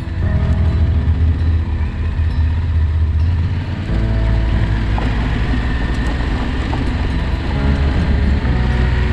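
Yamaha Ténéré 700's parallel-twin engine running steadily as the motorcycle rides along a gravel road, with wind noise over it; the engine note changes about four seconds in.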